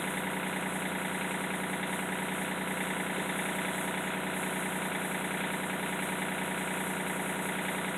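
A steady, unchanging mechanical drone like an idling engine or running motor, with no knocks or clatter standing out.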